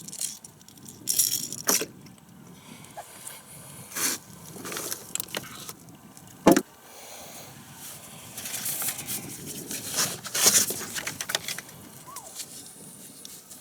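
Fishing gear being handled aboard a kayak: irregular rattling and clicking, with one sharp knock about six and a half seconds in.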